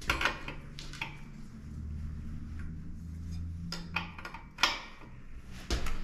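Metal headset wrench clinking and knocking on the locknut of a tight threaded bicycle headset as it is worked loose: a handful of sharp metallic clicks, with a low steady hum through the middle.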